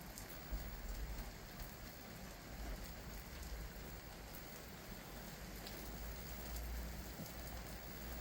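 Heavy rain pouring down steadily: a faint even hiss with scattered drop ticks, over a low rumble.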